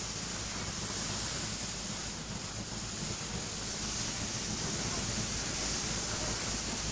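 Steady rushing noise, like wind over the microphone, with no distinct events.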